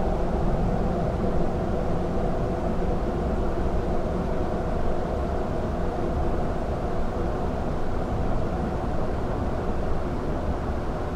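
Dark ambient drone: a steady deep rumble under several held, layered tones, with no beat and no change.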